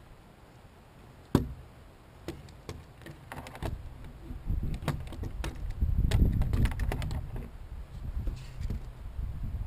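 Gear, including a corded electric fillet knife, being handled and set down on a hard plastic surface: one sharp knock about a second in, then a scatter of lighter clicks and taps. A low rumble builds in the middle of the clip. The knife's motor is not running.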